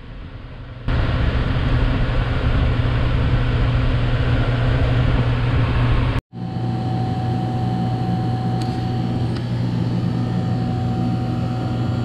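Walk-in cooler evaporator fan running: a steady low hum with the rush of moving air. The sound drops out for a moment about six seconds in, then carries on with a faint steady whine added.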